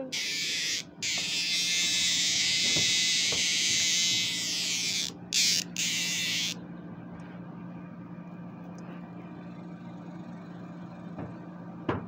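Male superb dog-day cicada (Neotibicen superbus) calling: a loud, high, steady buzz for about six seconds, with a few brief breaks near its end, then cutting off suddenly.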